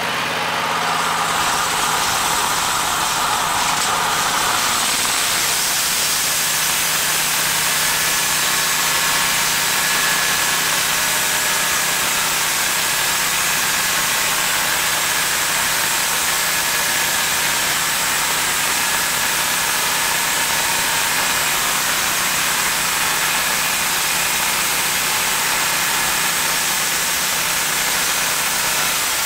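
Portable band sawmill running steadily at full speed, its engine hum under a loud, even hiss of the band blade cutting a pass through a log.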